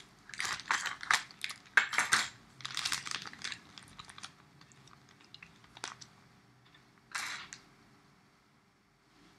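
Irregular clicks and rustling noises in a quick flurry over the first three seconds or so, then a single click about six seconds in and one short rustle around seven seconds in.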